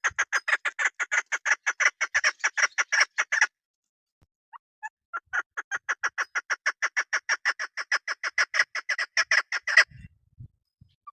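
Female chukar partridge calling: fast runs of short repeated notes, about seven a second, in two long bouts with a brief pause in the middle.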